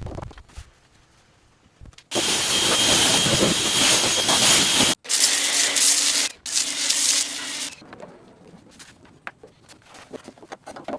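Pressure washer spraying in three bursts, about three seconds, then a second and a half, then a second and a half, each starting and cutting off suddenly as the trigger is pulled and released, with small clicks before and after.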